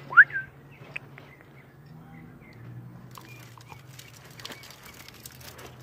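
Budgerigar giving one loud, rising chirp just after the start, followed by faint scattered chirps and small clicks over a low steady hum.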